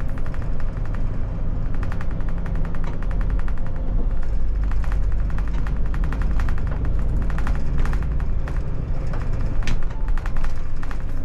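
Iveco Crossway bus driving, heard from the driver's seat: a steady low engine and road rumble, with fast, irregular clusters of rattling clicks over it.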